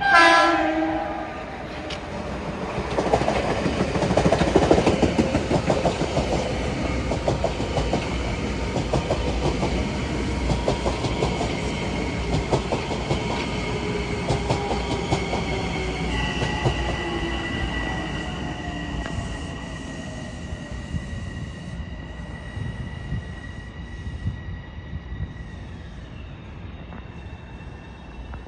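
A train passing close by. There is a brief horn blast at the start, falling in pitch as it goes. Then comes a rapid clickety-clack of wheels over rail joints, loudest about four to six seconds in, which gradually fades. A steady high whine runs through the second half and dies away near the end.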